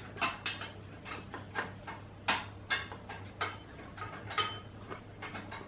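Irregular sharp metallic clicks and clinks, roughly one every half second to second, from hand tools working at the milling machine's ram as it is screwed up on Acme-threaded lifting rods. A low steady hum runs underneath.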